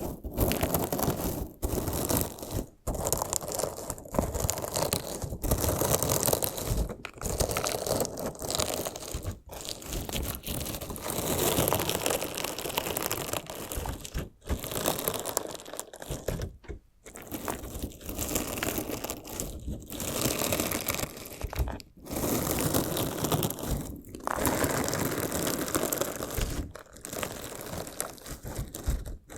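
Crunchy slime being cut and squeezed close to a binaural microphone: dense crackling crunches in bursts of a second or two, separated by brief pauses.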